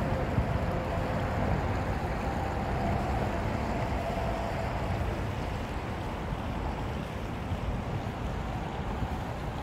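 Wind buffeting the microphone outdoors, a gusty low rumble, with a faint steady hum behind it that fades out about halfway through.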